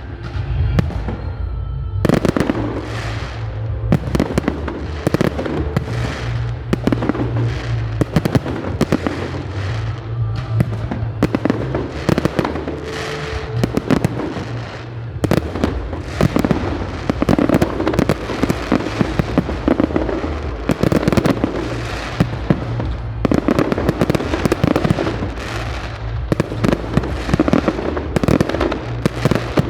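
Fireworks display: many shells bursting and crackling in quick succession, with sharp bangs throughout, over music.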